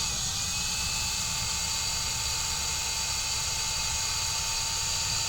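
Electric drill switched on and running steadily while drilling a hole into the side of a drawer. It starts suddenly with a brief dip in pitch as the motor spins up, then holds a steady whine.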